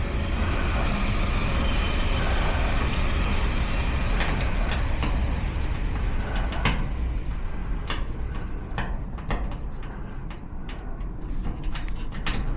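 A vehicle going past, its rumble and noise fading out over the first half, with a run of small sharp metallic clicks that grow more frequent in the second half: picks working inside a garage door lock cylinder.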